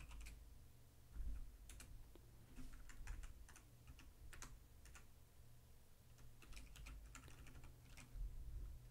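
Computer keyboard typing: faint, irregular keystrokes in short runs with pauses between them.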